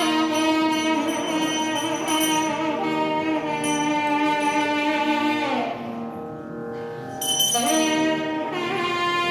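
Instrumental music made of long held notes with many overtones. The melody slides down and softens for about a second and a half around six seconds in, then the notes come back strongly.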